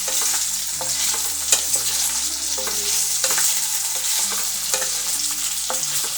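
Potato pieces frying in mustard oil with a steady sizzle, stirred with a spatula that scrapes and knocks against the pan several times.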